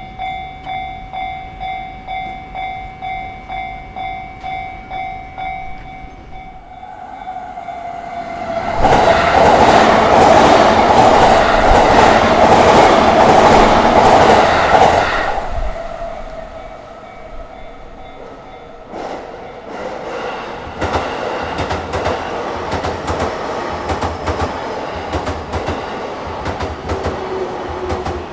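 Railway level-crossing warning bell ringing about twice a second, then stopping about six seconds in. Trains on the JR Tokaido Line then pass the crossing: a loud rush of a train going by for about seven seconds, then, from about twenty seconds in, a steady rhythmic clatter of wheels over the rail joints.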